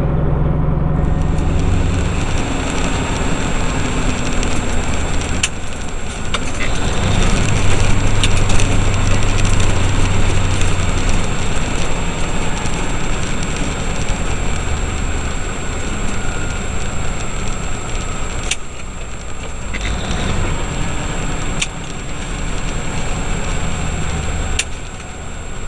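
Heavy truck's diesel engine running under way with road noise, the engine louder for a few seconds about a third of the way in. A thin steady high whine runs alongside, with a few sharp clicks.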